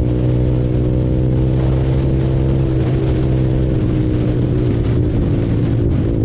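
Honda CBR150R's single-cylinder engine running at a steady cruise, its note holding nearly constant with small shifts in pitch, with wind rushing past.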